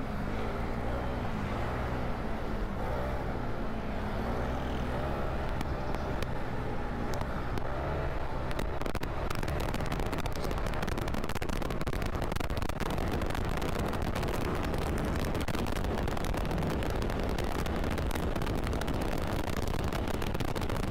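Kymco KRV 180 TCS scooter's engine running under way, its note wavering up and down for the first several seconds. About eight seconds in, wind buffeting on the microphone grows loud and masks much of the engine.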